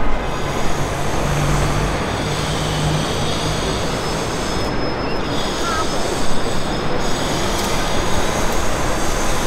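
Steady, loud city street noise: an even rush of passing traffic, with a faint high thin whine running through it.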